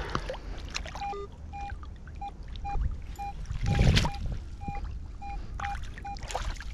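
Water splashing and trickling off a sand scoop being worked in shallow river water, with a louder splash about four seconds in. A metal detector beeps repeatedly at one steady mid pitch from about a second in, signalling a metal target in the scoop.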